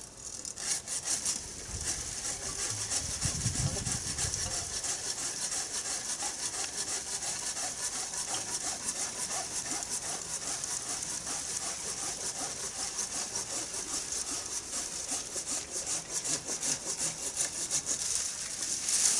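Pruning saw cutting through a Japanese maple branch with steady, rhythmic back-and-forth strokes, starting about a second in.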